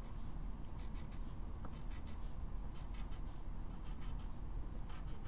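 Pencil scratching short strokes on graph paper, marking tick marks along a drawn axis in quick irregular runs.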